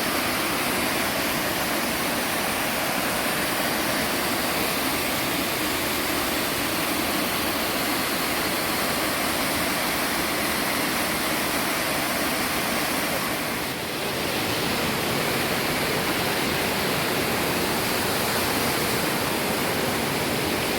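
Waterfall rushing, a steady even roar of falling water, with a brief drop in level about two-thirds of the way through.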